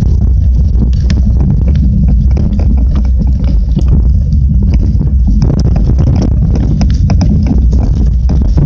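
Mountain bike riding fast over a bumpy dirt trail: a loud, steady low rumble with irregular knocks and rattles as the tyres hit bumps, roots and leaf litter.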